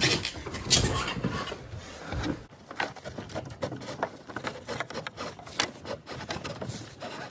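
Electrical cable being pushed and pulled through a hole in a wooden board wall: irregular scraping, rustling and knocks of the cord and gloved hand against the boards. The sound changes abruptly about two and a half seconds in.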